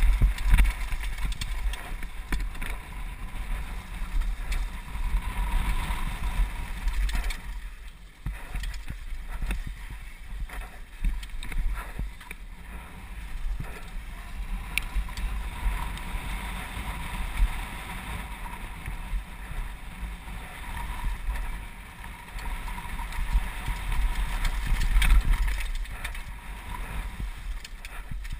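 Downhill mountain bike descending a dirt trail: wind buffeting the helmet camera's microphone as a heavy rumble, with tyre noise and the bike rattling and clicking over bumps.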